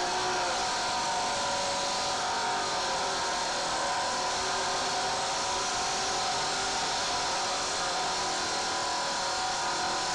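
Circular saw with a concrete-cutting blade running under load, cutting a shallow groove in a concrete floor: a steady motor whine over a gritty grinding noise.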